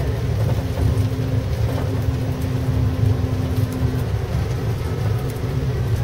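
Steady low rumble of an intercity coach on the move, heard from inside the passenger cabin: engine and road noise with a faint steady hum.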